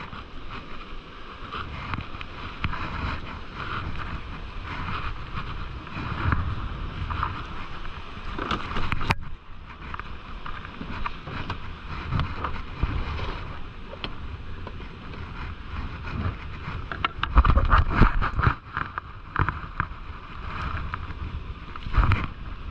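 Wind buffeting the camera's microphone, with surf washing in the background. There is a single sharp click about nine seconds in, and a louder stretch of low rumble about three quarters of the way through.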